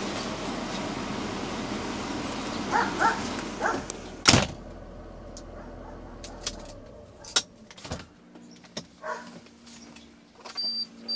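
The car's steady running noise carries on while a dog barks three times; about four seconds in, a loud click and the running noise cuts out as the car is switched off. Scattered small clicks and another dog bark follow, and near the end a rapid high-pitched beeping starts, about two beeps a second.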